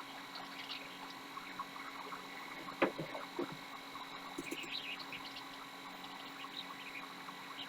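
Faint steady electrical hum and whine from running equipment, with a few soft clicks about three seconds in.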